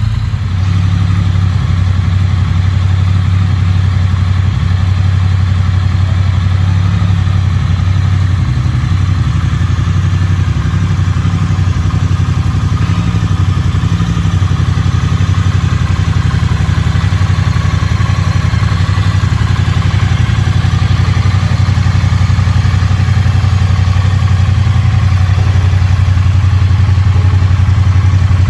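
Triumph Bonneville T100's 900 cc parallel-twin engine, with its 270-degree firing order, idling steadily with no revving.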